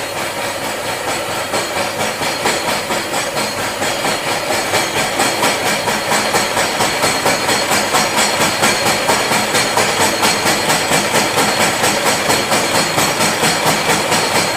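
Vertical milling machine face milling a metal workpiece held in a vise: a loud, steady cutting noise from the face mill that pulses at a regular rate and grows a little stronger over the first few seconds.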